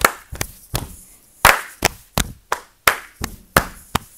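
Three layered body percussion parts played together in a quick, even rhythm: sharp hand claps over softer chest and thigh pats, about five or six strikes a second.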